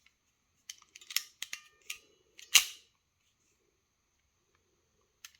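Ratchet mechanism of a Preciva DEM49XN hexagonal ferrule crimping tool being worked by hand: a quick run of small metallic clicks about a second in, then one louder snap at about two and a half seconds, and a single faint click near the end.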